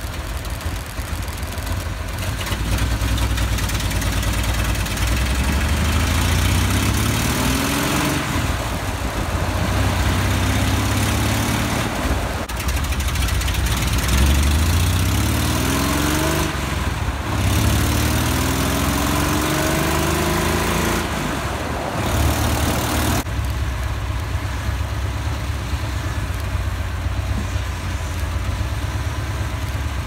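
Jeep CJ engine pulling the vehicle along the road, its pitch climbing and then dropping back several times as it shifts up through the gears, over steady road and wind noise.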